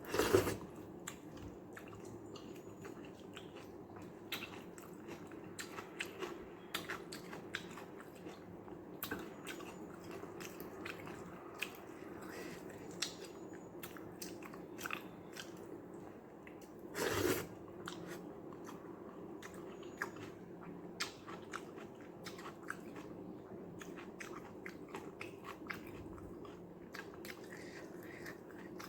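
Close-up chewing sounds of a person eating rice with sambar, with many small wet clicks and crunches. A louder burst comes right at the start and another about halfway through, over a steady low hum.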